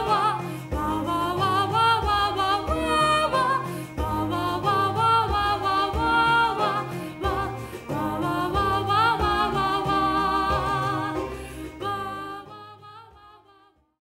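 Music with a singing voice over a steady bass line, fading out over the last two seconds.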